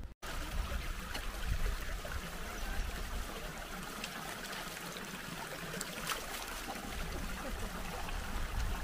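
A small mountain stream running over stones in a steady rush, with a low wind rumble on the microphone.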